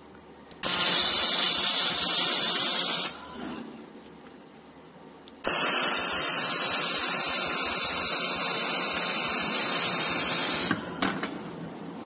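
Handheld fiber laser welder welding a stainless steel door hinge seam: two spells of steady hissing from the shielding gas and weld, the first about two and a half seconds long, the second about five seconds, each starting and stopping abruptly as the trigger is pulled and released.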